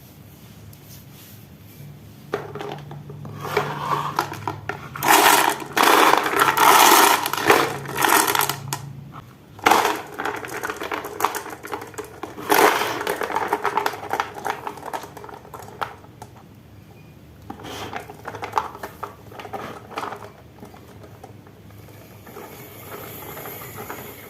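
Marbles rolling and clattering down a wooden Haba marble run: a dense rattle of clicks over a low rolling rumble. It starts a couple of seconds in, is busiest in the middle, comes back more weakly later and thins out near the end.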